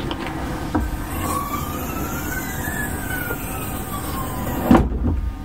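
Hinged wooden companionway steps lifted up on their gas strut to open a yacht's engine compartment: handling knocks, with a sharper thump near the end, over a steady low rumble. A faint wailing tone rises and falls in the background.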